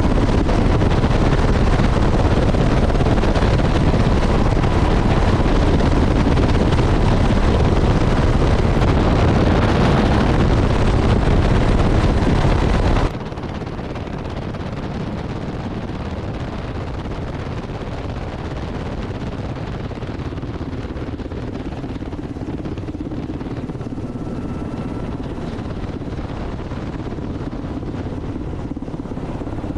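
Steady helicopter engine and rotor noise mixed with wind buffeting the microphone. It is loud at first, then drops suddenly to a lower steady level about 13 seconds in.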